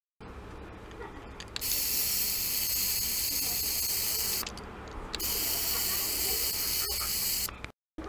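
Steady hiss from a handheld ultrasonic device working in a glass of water. It switches on about one and a half seconds in, drops out for about half a second just after the middle, and resumes, then cuts off just before the end.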